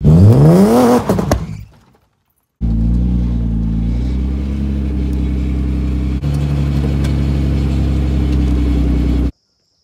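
BMW E36 drift car engine revved once, its pitch climbing sharply for about a second before dying away. After a break, it idles steadily through the exhaust, cutting off suddenly near the end.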